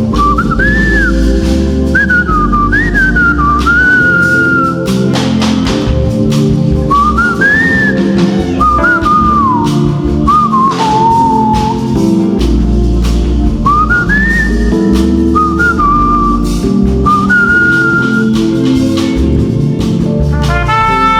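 Worship band music: a high, single lead melody that slides and bends between notes, over a steady bed of bass, sustained keyboard chords and drum hits.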